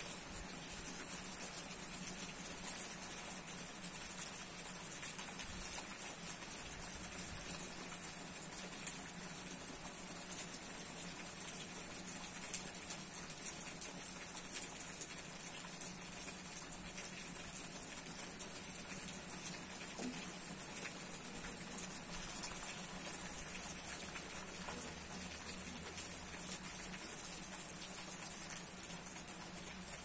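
Steady hard rain falling on a leafy tree, a dense even patter with scattered louder drops.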